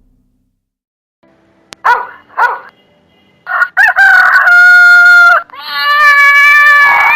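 Rooster crowing twice in long, held calls, after two short clucking calls that begin about two seconds in.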